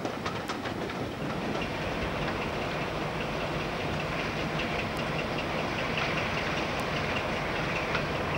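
Diesel-hauled train running, heard from an open carriage window: a steady low engine hum under rail and wheel noise, with light regular ticking.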